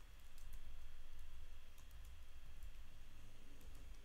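A few faint, scattered computer keyboard key clicks over a low steady hum.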